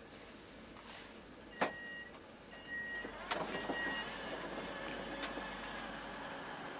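Passenger train door alert: three short two-tone beeps, the first with a sharp click. The door then opens with a couple of clunks, and a steady rush of station noise comes in.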